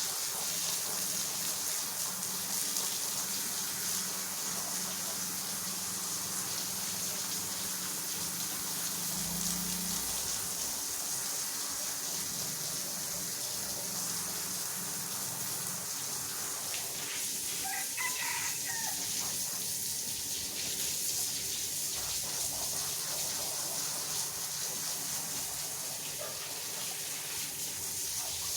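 Rotary floor polisher scrubbing a wet carpet: a steady motor hum under the constant hiss of the brush working through the wet fibres. A rooster crows briefly about eighteen seconds in.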